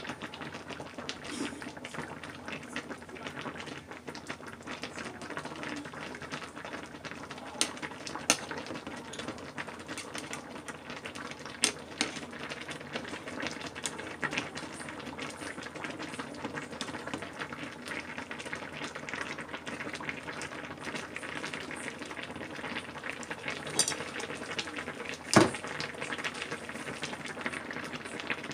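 Sukiyaki broth simmering in a pot, with meat and vegetables boiling until soft; it makes a steady, dense crackle of fine bubbling. Utensils click against the pot a few times, the loudest knock coming a few seconds before the end.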